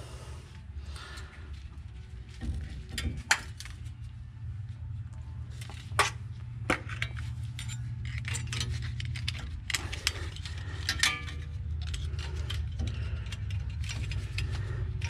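Metal clicks and clinks of a disc brake caliper, its pads and spring clips being handled and fitted by hand, a dozen or so scattered sharp taps, over a steady low rumble.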